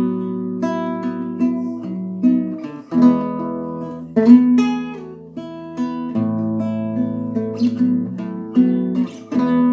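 Acoustic guitar playing: picked and strummed chords, each note starting sharply and left to ring.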